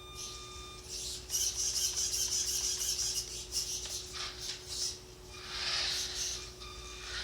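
Redcat Volcano 18 1/18-scale brushed electric RC truck driving in bursts, a hissy scraping noise from its motor and tyres that rises and falls with each push of the throttle.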